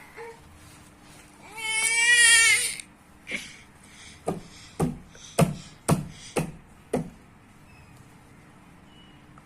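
A baby gives one loud, wavering cry of about a second. Then comes a run of about seven short, sharp coughs, roughly half a second apart.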